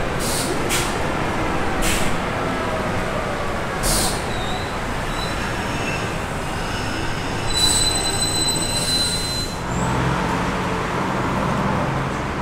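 Street traffic running, with several brief high hisses and, past the middle, a high-pitched squeal of a vehicle's brakes lasting about two seconds.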